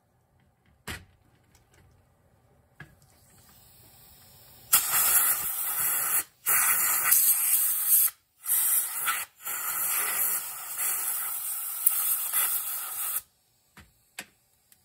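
Compressed air blowing through the ports of a Honda GL1500 Goldwing carburetor: a loud hiss that starts about a third of the way in and comes in four blasts with short breaks, cutting off near the end. Two single clicks come before it.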